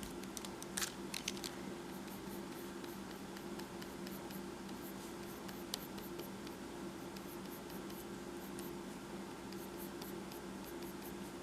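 Pencil strokes scratching across paper in short, repeated strokes, with a few sharper ticks, over a steady low hum.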